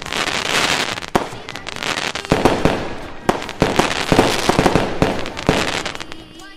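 Fireworks going off: a string of sharp bangs about a second apart, with dense crackling between them, dying down near the end.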